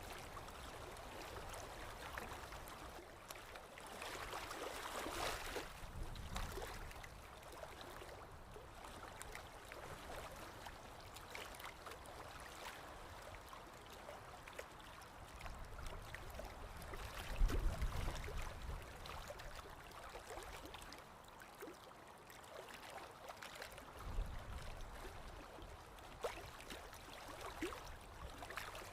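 Faint scratchy rustle and small taps of a paintbrush working acrylic paint on a canvas, with a few low thumps, the loudest a little past halfway.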